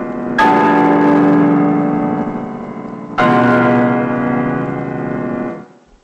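A large bell struck twice, about three seconds apart, each stroke ringing on with many overtones and slowly dying away. The ringing fades out shortly before the end.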